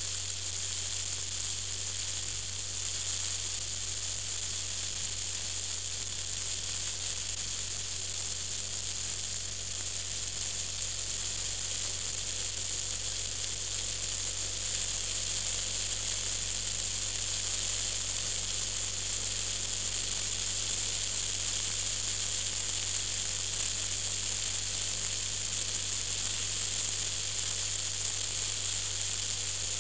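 Steady hiss with a low hum beneath: the wind and road noise of a vehicle driving along at a constant speed, picked up by a small onboard camera.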